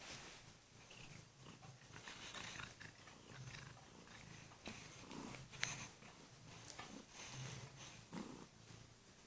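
Kurilian Bobtail cat purring, the purr swelling and fading with each breath, with soft rustles and a sharp click about halfway through.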